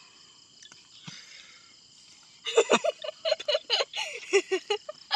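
A steady chorus of night insects, with a run of quick, high-pitched vocal sounds from about halfway through.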